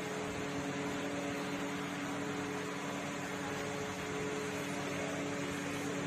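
Steady mechanical hum: a few held tones over an even hiss, with no change or break.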